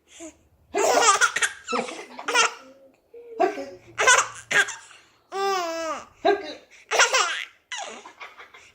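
A six-month-old baby laughing in repeated short bursts, with one longer, wavering laugh a little past the middle.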